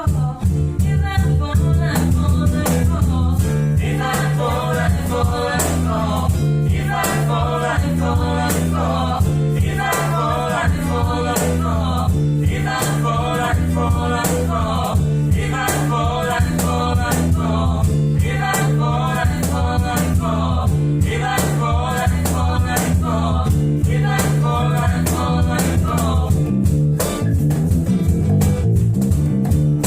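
Acoustic band performance: a voice singing over acoustic guitar and bass, with a steady rattling percussion beat like a shaker. The singing stops near the end, leaving the instruments playing.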